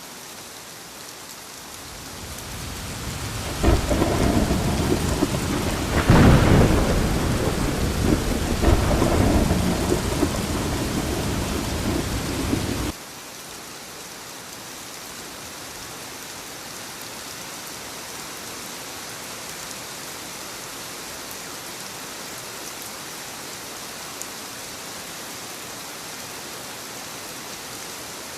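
Steady rain falling, with a thunderclap that cracks a few seconds in and rumbles on in heavy rolls before cutting off suddenly about halfway through; the rain then continues as an even hiss.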